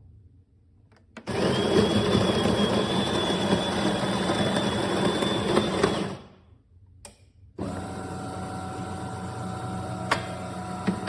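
De'Longhi Magnifica S automatic espresso machine working through a cycle: a loud grinding run with a steady high whine for about five seconds that stops abruptly, a short pause, then a steadier motor hum.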